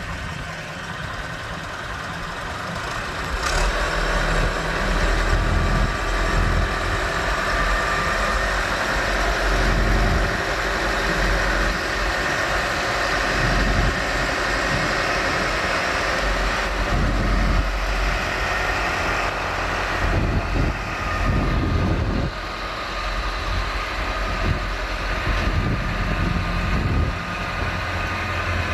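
Massey Ferguson 390 tractor's diesel engine running steadily, growing louder about three and a half seconds in, with a faint high whine over the engine note.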